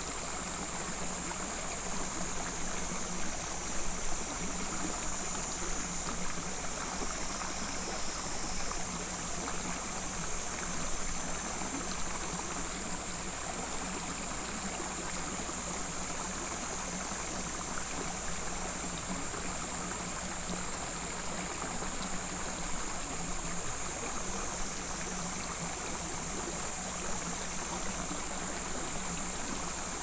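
Mountain stream water rushing and splashing steadily over rocks, with a constant high-pitched shrill running above it.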